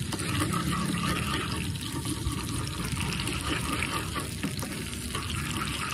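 Chopped chilli and garlic sizzling in hot oil in a small frying pan, stirred with a spatula; a steady hiss.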